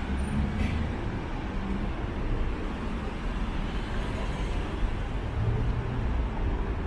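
City road traffic: a steady wash of passing vehicles with the low rumble of running engines.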